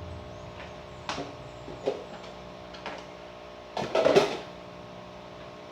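A few short knocks and clatters of kitchen utensils and containers being handled, loudest in a cluster about four seconds in, over a steady background hum.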